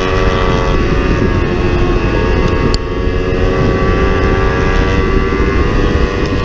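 Kawasaki Ninja 300's parallel-twin engine running hard at race pace, heard from an onboard camera under a heavy rush of wind. The engine note shifts a little under a second in, and the loudness dips briefly about three seconds in.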